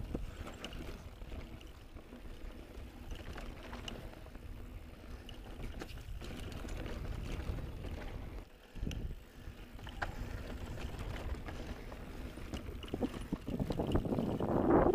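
On-One Codeine mountain bike rolling down a dirt singletrack: tyres crunching over dirt and rocks, small rattles from the bike, and wind over the microphone, getting louder near the end.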